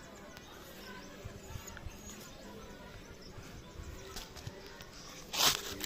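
Quiet outdoor background with a few faint bird chirps, then a brief loud rush of rustling noise near the end.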